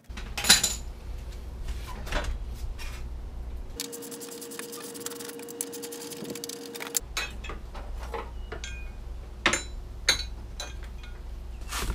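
Hand tools clattering on a car's front end: a sharp metallic knock about half a second in, scattered clicks and clunks later on, and a steady hum for about three seconds in the middle.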